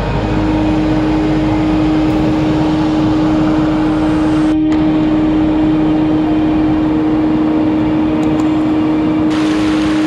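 Waterfall water sliding and splashing over bare rock, a loud steady rush. A steady low hum runs underneath it.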